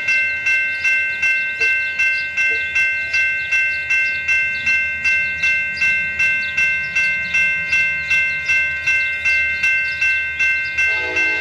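Railroad crossing bell ringing steadily, about two and a half strikes a second. Near the end a locomotive horn starts sounding under it as the train approaches.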